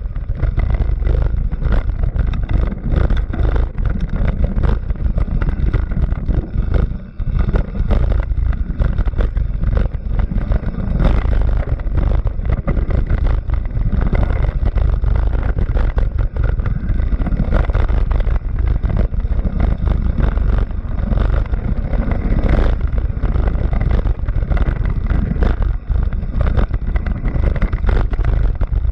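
Competition car driven hard, with loud, continuous engine and road noise and wind buffeting, and a short dip about seven seconds in.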